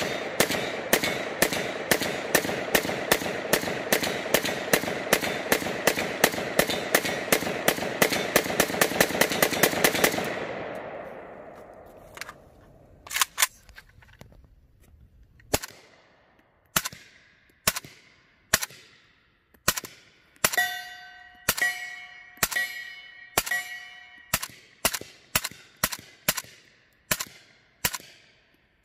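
AK-pattern rifles firing: rapid semi-automatic shots, about three a second, for roughly ten seconds, each one echoing. Then slower single shots about a second apart, and in the last third each shot is followed by the ring of a struck steel target.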